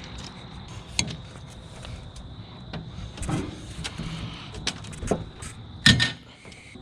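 Scattered small clicks and knocks from fitting a pushbutton switch onto a bucket lift's control panel, with the loudest knock near the end.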